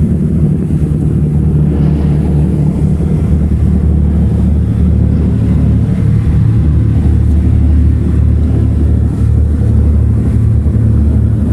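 Large passenger ferry's engines droning steadily, heard from on board as a constant deep hum.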